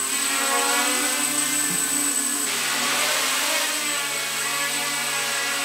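Mini quadcopter's four small brushless motors and propellers whirring steadily in flight. The note changes about two and a half seconds in.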